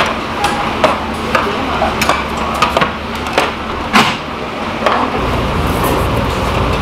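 Stainless steel noodle bowls and a metal serving tray clinking and knocking as dishes are set down on a table, a series of sharp clinks with the loudest about four seconds in. A low steady hum comes in near the end.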